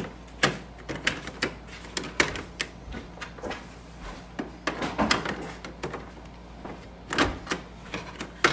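Irregular plastic clicks and knocks of ink cartridges being pushed down into an Epson WorkForce Pro WF-3820's cartridge holder, snapping as they lock into place.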